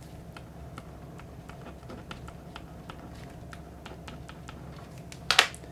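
Pen writing on paper: a run of faint scratches and light ticks, with one louder knock near the end.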